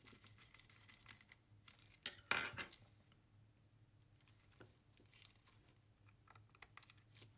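A sharp metallic clink with a brief ring about two seconds in, then faint scattered taps and clicks, as tiny screws and a small screwdriver are handled.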